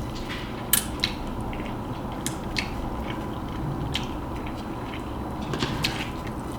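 Close-miked chewing and mouth sounds: a few short, sharp clicks and smacks scattered over a steady low background hum.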